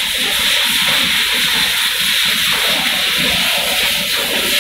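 Car AC refrigerant recovery-and-recharge machine running: a loud, steady hiss like rushing gas, with a low, even pulsing underneath.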